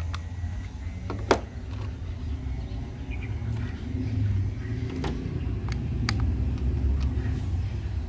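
Light plastic clicks and taps from a toy RC car and its controller being handled, with one sharp click about a second in, over a steady low background rumble.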